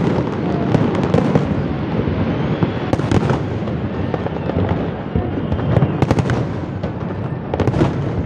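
Fireworks display: a continuous barrage of aerial shells bursting and crackling, with sharper bangs standing out about three seconds in, around six seconds in and near the end.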